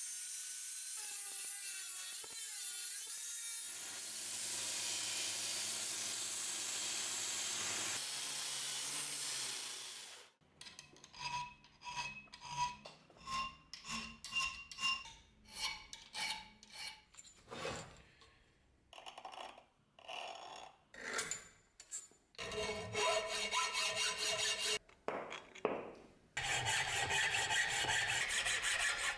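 Angle grinder cutting through a steel bar, a continuous whine and hiss. Then a hand file rasping on steel in steady strokes, about one and a half a second. Near the end, a hacksaw sawing back and forth through steel clamped in a vise.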